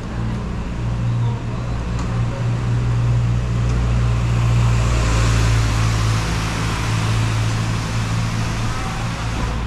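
Street traffic: a steady low engine hum, with a vehicle passing that is loudest about five seconds in.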